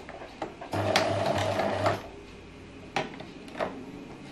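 Domestic electric sewing machine stitching a seam in a short burst of just over a second, starting about a second in and stopping, with its steady motor hum and rapid needle rhythm. A few separate sharp clicks come before and after the burst.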